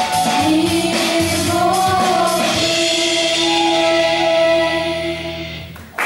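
Girls' vocal group singing the final long held note of a song with musical accompaniment, the sound fading out near the end.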